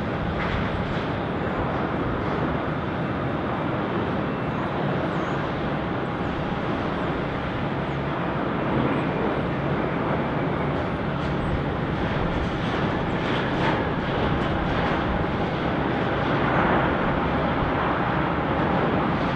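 Boeing 787-9 airliner's jet engines running as it touches down and rolls out along the runway: a steady rush of jet noise with a faint steady whine, swelling slightly about nine seconds in and again near the end.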